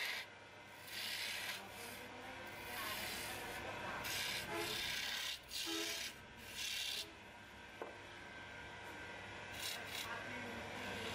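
Wood lathe turning tool scraping a spinning wooden spindle, in several spells of about a second each as the tool is pushed into the wood, over a faint low steady hum.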